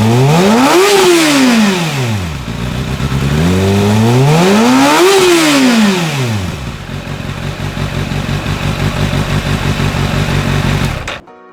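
Kawasaki Ninja ZX-6R inline-four revved twice through a TRICK STAR IKAZUCHI full exhaust, each rev rising and falling over about two and a half seconds. It then settles to a steady idle, which cuts off suddenly near the end.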